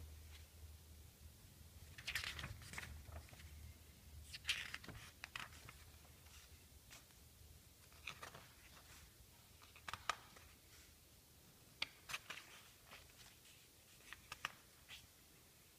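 Magazine pages turned by hand one after another, each turn a soft paper swish, about six of them a couple of seconds apart, with a few light taps and clicks in between.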